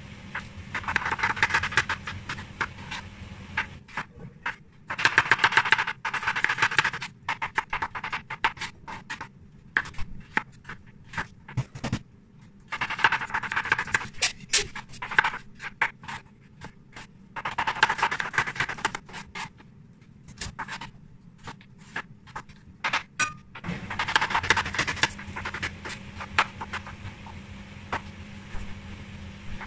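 Chef's knife dicing carrots on a plastic cutting board: quick runs of chopping strokes lasting a second or two, separated by pauses with a few single cuts. A low steady hum sits underneath.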